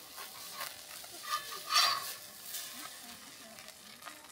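Food frying faintly in a pan as a spatula lifts it out onto a plate. Two short, louder noises come a little under two seconds in.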